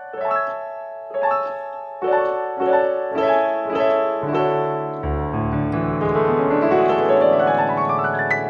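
Sampled acoustic piano from a Kontakt library playing chords struck about once a second, then a deep bass note about five seconds in and a rising run of notes that is held and rings together.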